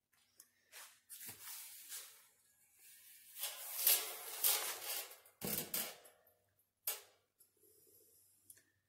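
Hand work on a sheet-steel car door skin: a handful of irregular metal knocks and taps, a longer scraping stretch in the middle, and a heavier knock with a thump a little past halfway.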